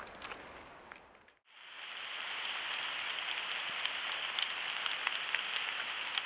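Steady hiss of outdoor ambience picked up by a trail camera's microphone, sprinkled with faint ticks and crackles. A brief drop to silence about a second and a half in, after which the hiss comes back louder.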